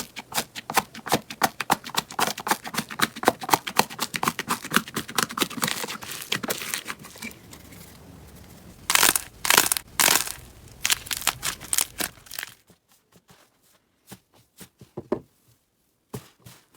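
Slime being squeezed and worked by hand, giving off dense, rapid crackling pops. These thin out after about seven seconds, a few louder crunches follow, and only sparse faint clicks are left near the end.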